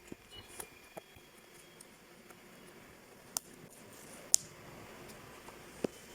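A few faint, sharp clicks and taps against quiet room tone, the loudest about three and a half, four and a half and nearly six seconds in.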